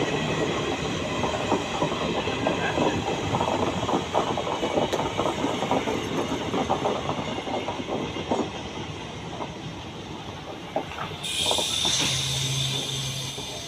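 Passenger train coaches rolling past at speed, their wheels clattering over rail joints, growing fainter as the train moves away. A sudden hiss with a low steady hum sets in near the end.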